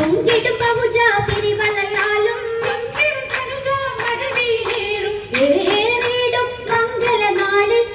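Women's voices singing an Oppana song together over a steady beat of hand claps.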